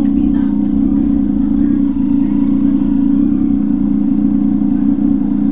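Vehicle engine running steadily at a constant pitch, a loud even drone with no revving or limiter cuts.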